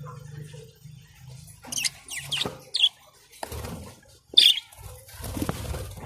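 Caged budgerigars chirping: a handful of short, sharp calls scattered through, with a burst of rustling in the last second or two.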